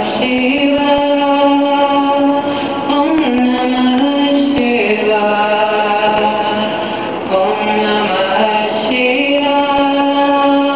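A street musician's slow melody of long held notes, each lasting a second or two and stepping between a few pitches.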